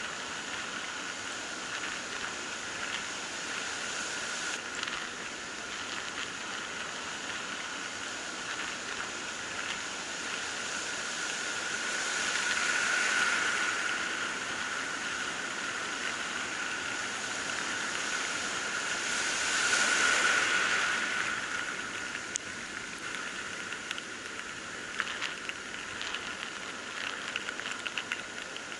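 Rough sea surf washing and breaking in foam, swelling louder twice, near the middle and again about two-thirds of the way through, over a steady high whistle.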